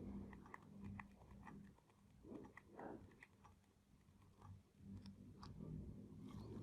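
Near silence: a faint low hum with scattered light clicks and taps from soldering-iron work on a circuit board, removing excess solder.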